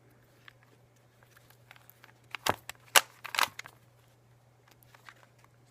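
A plastic Rubik's cube being handled and turned: a few sharp clicks and short rattles of the layers about two and a half to three and a half seconds in, over a low steady hum.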